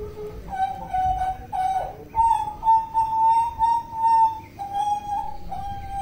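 Hooded butcherbird (jagal papua) singing: a string of clear, flute-like whistled notes, several held steady for about a second, rising slightly in pitch in the middle and settling lower near the end.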